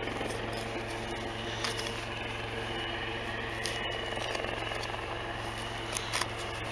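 Rustling and crumbling of soil being dug and sifted by hand to recover a metal-detector target, with a few short sharp clicks, over a steady low hum.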